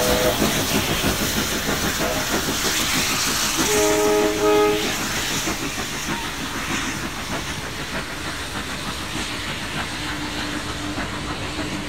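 NSWGR 35-class steam locomotive 3526 and its passenger carriages drawing away: steam exhaust and hiss over the wheels clicking on the rail joints, fading steadily as the train recedes. About four seconds in, a single blast of a train's whistle lasting about a second.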